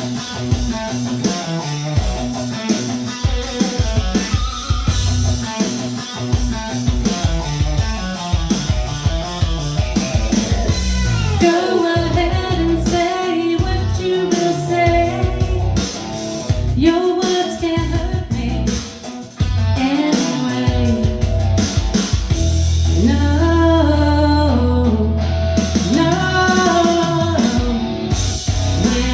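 A woman singing a slow pop song over guitar accompaniment.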